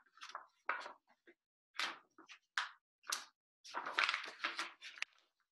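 Picture book's pages rustling and flapping as the book is handled and a page is turned, in several short bursts, the busiest about four seconds in.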